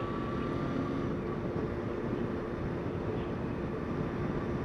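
Motorcycle cruising at a steady speed: a constant engine hum under wind and road noise.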